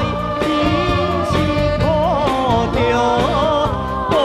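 Recorded Taiwanese-language pop song: a sung melody with held, wavering notes over band accompaniment with a steady beat.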